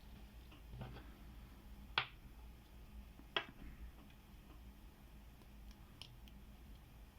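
Faint small clicks and ticks from handling padlocks and lock picks during lock picking, with two sharper clicks about two and three and a half seconds in.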